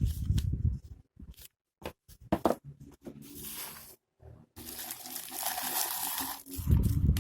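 Packaging being handled during an unboxing: crackling, rustling and tearing, loudest in two stretches in the middle, with scattered clicks between.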